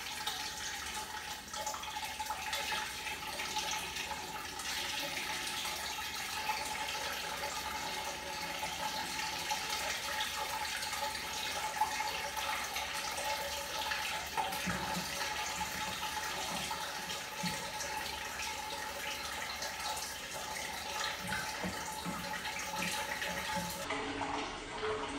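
Water running steadily from a tap in a small tiled bathroom, a continuous hiss.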